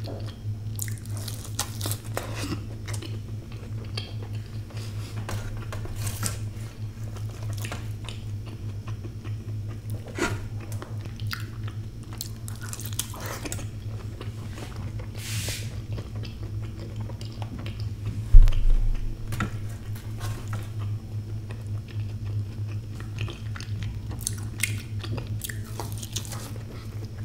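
Close-miked biting and wet chewing of fried sunny-side-up eggs dipped in chutney, with scattered small mouth clicks and smacks over a steady low hum. A single loud low thump about two-thirds of the way through.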